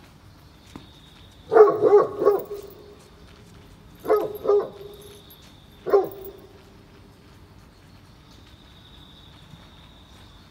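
Great Pyrenees barking in three short bouts: a quick run of several barks about a second and a half in, two more around four seconds, and a single bark near six seconds.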